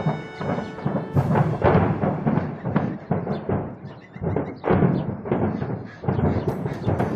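Dramatic background music driven by heavy, repeated drum hits, with held orchestral tones fading out about a second in.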